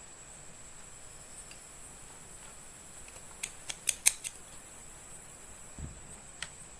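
Small spring-action thread snips cutting woollen yarn: a quick run of about five sharp snips midway, then a single snip and a soft knock near the end.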